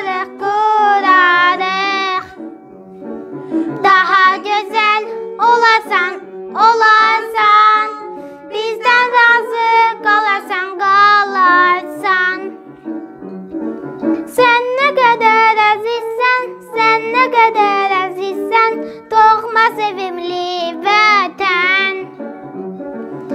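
Music: a child's voice sings a wavering, ornamented melody in phrases over instrumental accompaniment.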